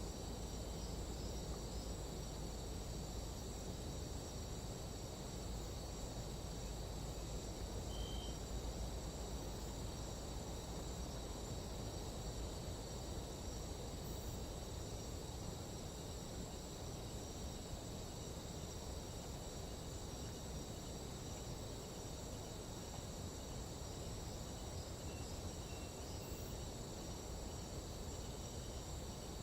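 Nighttime tropical jungle insect chorus: crickets and other insects trilling steadily in several overlapping high shrill tones, over a low, even rushing noise.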